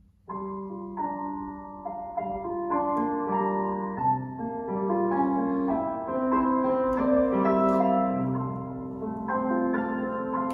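Solo piano playing class accompaniment for a ballet barre exercise, starting suddenly a moment in and running as a measured melody over held chords.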